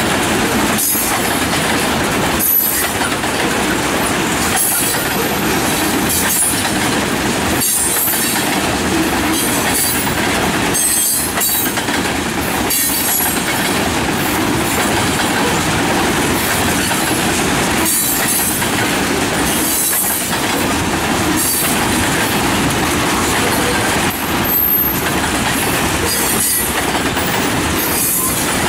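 Freight train of tank cars rolling past at speed over a grade crossing: a steady loud rumble of steel wheels on rail, broken every second or two by sharp clacks as the wheels cross the rail joints.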